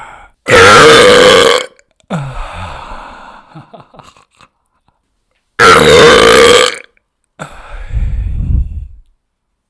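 Two loud, drawn-out human burps, each lasting about a second, brought up by gas from a carbonated energy drink just sipped. Quieter, breathy trailing sounds follow each burp.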